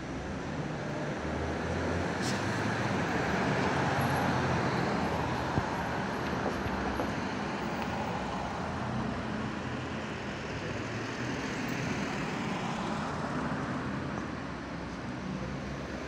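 Steady road traffic noise: a low engine rumble with a hiss above it, swelling slightly about four seconds in.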